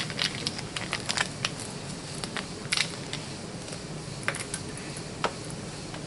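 Metal timing chain for a 2007 Mini Cooper S clinking against its plastic guides as it is handled and set into the guide cassette: scattered light clicks at uneven gaps.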